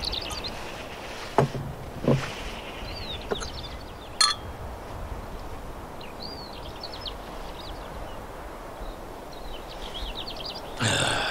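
Outdoor garden ambience with small birds chirping on and off throughout, and a few short knocks, the loudest about a second and a half and two seconds in. A louder, brief sound comes in near the end.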